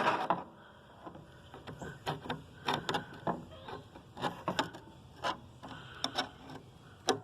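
Scattered irregular light clicks and knocks, a few to each second, with no engine running.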